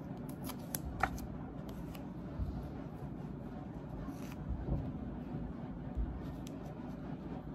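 Faint rustling of a gauze wound dressing being pressed and smoothed onto the skin by fingers, with a few light clicks in the first second and some soft bumps later, over steady low room noise.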